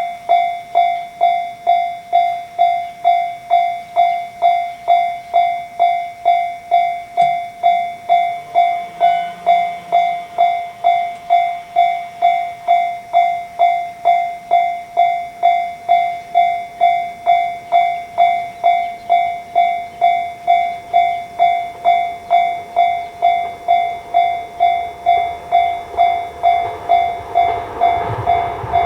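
Japanese level crossing alarm ringing its 'kan-kan' warning, a single ringing tone struck about twice a second. Over the last few seconds a train's rumble rises beneath it as the train approaches the crossing.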